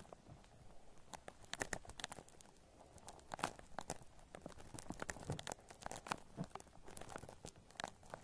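Shaving cream foam being worked and squished by hand close to the microphone: a steady stream of irregular soft crackles and pops.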